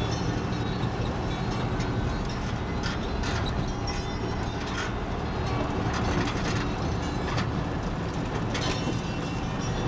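Truck running along a rough dirt road, heard from inside the cab: a steady engine and road rumble with irregular rattles and knocks from the bodywork.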